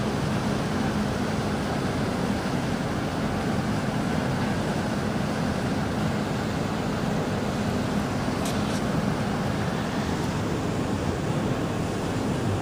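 Large boat's engines running with a steady low hum, mixed with wind buffeting the microphone.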